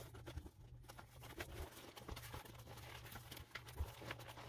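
Faint rustling and scuffing of a stitched leather mini-backpack being worked inside out by hand, with scattered light taps and clicks.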